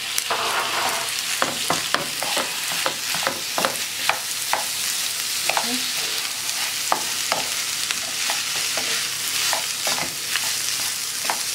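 Rice sizzling in a hot frying pan while a wooden spatula stirs it, with frequent sharp scrapes and knocks of the spatula against the pan over a steady frying hiss.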